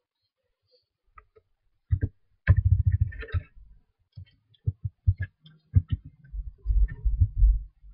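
Keystrokes on a computer keyboard: irregular knocks and low thumps in short clusters, with a denser run in the last couple of seconds.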